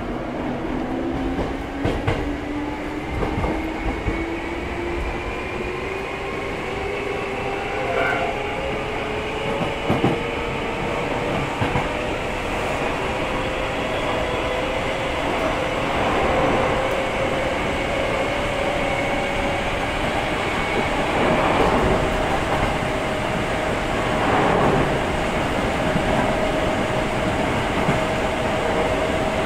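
Hankyu 6300 series electric train running, heard from inside the passenger car: the traction motor whine rises steadily in pitch as the train picks up speed, then holds level for the last several seconds. Under it is a constant wheel rumble, with a few clacks over rail joints.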